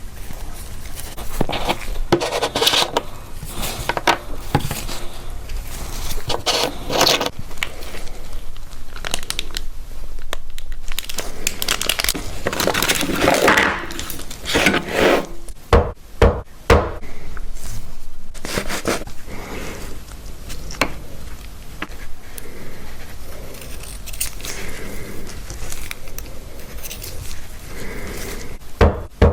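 Irregular scraping, rustling and handling noises with a few sharp clicks about halfway through, as small tools and watch parts are worked on a bench.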